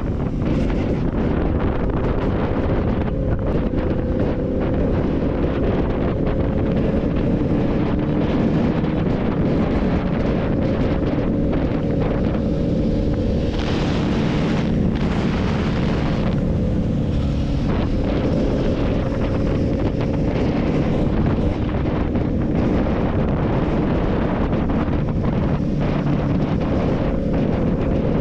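Wind buffeting the microphone while riding, over the steady running of a Benelli 600i's inline-four engine. About halfway through, a brighter hiss swells for a few seconds.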